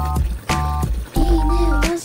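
Background music with a steady beat, deep bass notes and short stacked chords.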